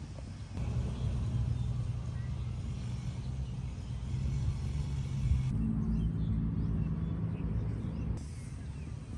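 A low, steady rumble with a faint hum in it, louder from about half a second in and dropping back near the end.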